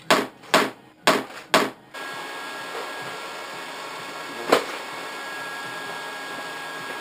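Four sharp metallic taps about two a second, stopping about two seconds in. A small handheld electric blower-type tool then switches on and runs steadily with a thin whine, and one more metallic knock comes partway through.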